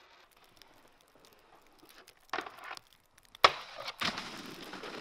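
A snowboard lands with a sharp thud about three and a half seconds in, then slides across the snow with a steady scraping hiss. A brief scrape comes about a second before the landing.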